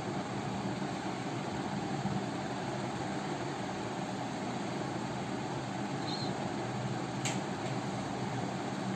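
Steady mechanical hum of a running household appliance, with a single faint click about seven seconds in.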